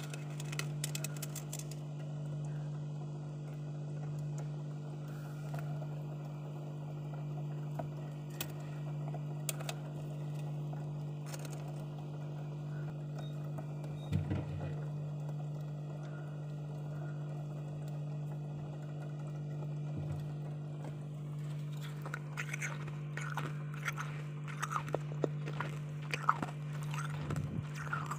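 Steady low hum under fingers scraping and crunching the frost that coats the inside of a freezer, the crunching scattered at first and coming thick and fast in the last several seconds.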